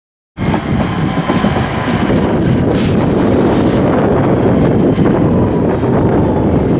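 Class 50 diesel locomotive's English Electric 16-cylinder engine running loud and steady, with a brief hiss about three seconds in.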